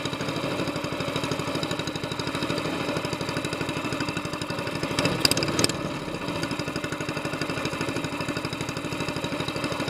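Air-cooled single-cylinder Honda-clone engine on a longtail mud motor, fitted with an SPS exhaust header, running at a steady throttle as it pushes a jon boat. A couple of brief sharp noises come about five seconds in.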